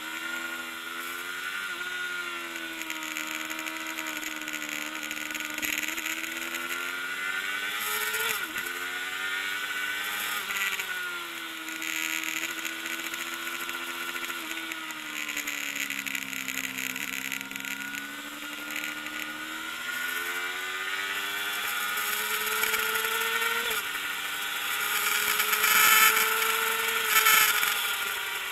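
Kawasaki ZXR400's inline-four engine at race pace. Its pitch climbs under acceleration and drops off sharply several times at gear changes and corner entries, and it runs loudest near the end.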